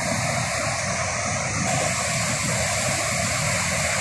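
Water pouring over the steps of a weir, a steady rushing noise.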